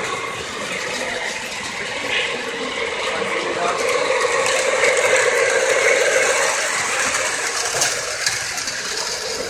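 Model train running on its track: a steady whirring, rattling clatter of the electric motor, gears and wheels on the rails, growing loudest about halfway through as the locomotive and its streamlined passenger cars pass close, then easing off.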